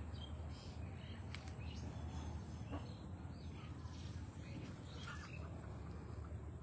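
Rural waterside ambience: a steady high-pitched insect buzz with scattered short bird chirps over a low wind rumble.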